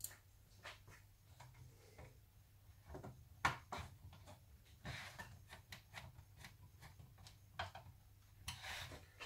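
Faint, scattered clicks, taps and rubbing as hands and a screwdriver handle the hard plastic shell of a 1980 Bigtrak toy, with one sharper knock about three and a half seconds in, over a low steady hum.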